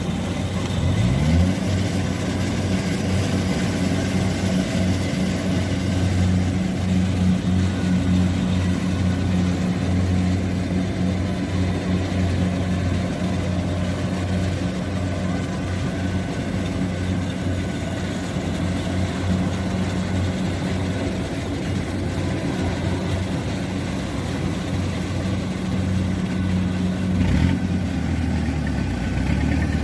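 Kubota combine harvester's diesel engine running steadily, its pitch rising about a second in as it revs up, then holding.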